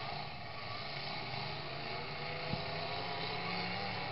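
Demolition derby trucks' engines running in the arena, with a single sharp knock about two and a half seconds in.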